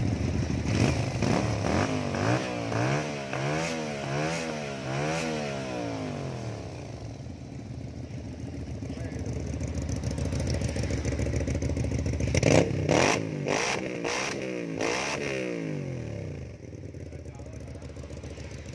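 A 250 cc V-twin motorcycle on its stock exhaust, revved in a run of about five quick throttle blips, then idling, then blipped sharply three or four times again about two-thirds of the way through before settling back to idle.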